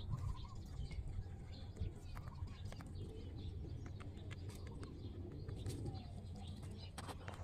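Rabbit chewing fresh leafy stems close up: a quick, irregular run of small crisp crunches and clicks.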